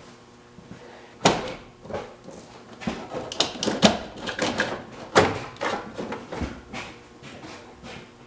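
Hood release cable being pulled out through the cab of a 1992 Ford F-350, with irregular knocks, scrapes and rattles as it drags and catches on wiring. The first sharp knock comes about a second in.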